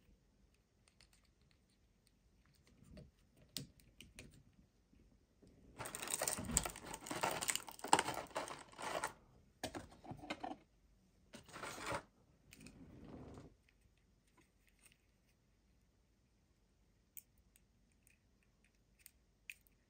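Light clicks and taps of a plastic action figure being handled, then several loud spells of crinkling clear plastic packaging in the middle, and a few faint clicks near the end.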